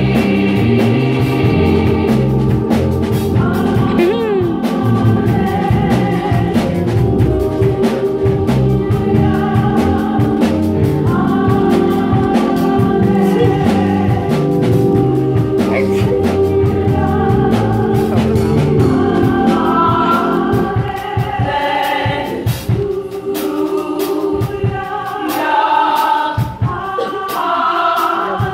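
Gospel choir singing with instrumental backing. About twenty seconds in the low instruments fall away and the voices carry on almost alone.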